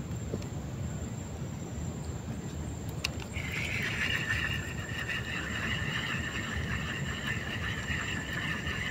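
A single sharp click about three seconds in, then a steady, high, fast-fluttering insect trill on two pitches that sets in just after it and keeps going, over a low background hiss.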